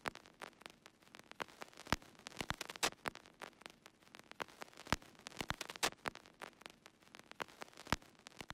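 Crackle like an old record's surface noise: scattered clicks and pops at irregular intervals, several a second, over a faint hiss.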